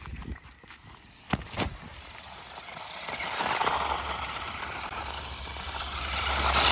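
RC car driving over the dirt track, a broad tyre-and-motor noise that builds and grows louder toward the end, after two sharp knocks about a second and a half in.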